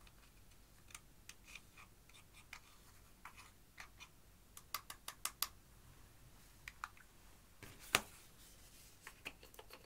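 A thin metal tool scraping and crumbling pressed eyeshadow in its plastic compact: faint scattered scratches and small clicks, with a quick run of about four clicks around five seconds in and one sharper click about eight seconds in.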